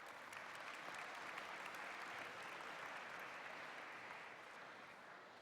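Audience applauding, swelling within the first second, then slowly dying away toward the end.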